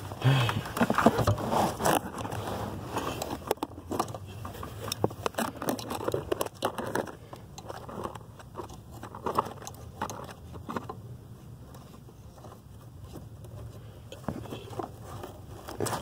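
Scattered small clicks, scrapes and rustles of gloved hands working metal and plastic parts under a car's dashboard, as the retaining pin is fitted back at the brake pedal and the new brake light switch. Busiest in the first half, sparser toward the middle.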